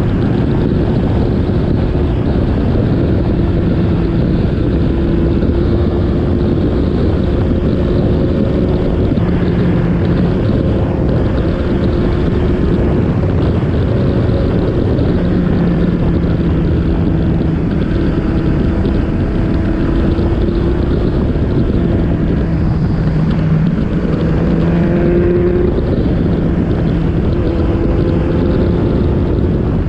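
Motorcycle engine running at fairly steady revs with small rises and falls in pitch, under a constant rush of wind noise.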